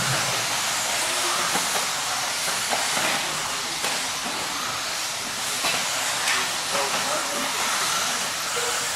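Pack of electric 1/10-scale four-wheel-drive RC buggies racing on a dirt track: a steady hiss of motors and tyres, with scattered sharp clicks from landings and knocks.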